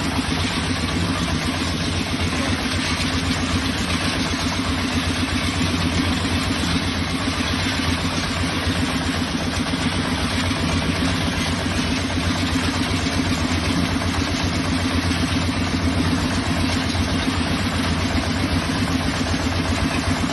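An engine running steadily at an even idle, a constant low hum with no change in speed.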